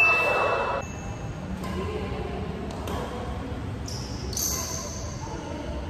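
Badminton game in an echoing sports hall: sneaker soles give short high squeaks on the court floor, mixed with a few sharp hits.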